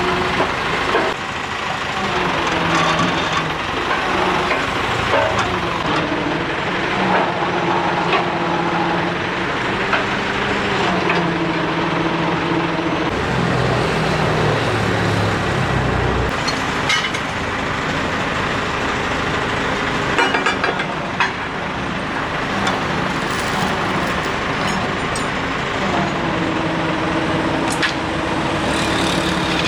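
Heavy diesel machinery running loudly, its engine pitch shifting up and down and dropping low about halfway, with scattered sharp metal knocks in the second half.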